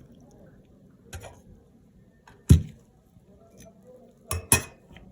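Kitchenware being handled: a faint knock about a second in, a louder knock about two and a half seconds in, then two sharp clinks close together near the end.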